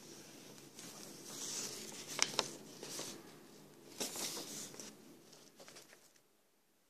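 Rustling and rubbing handling noise, with two sharp clicks about two seconds in and another about four seconds in, dying away near the end.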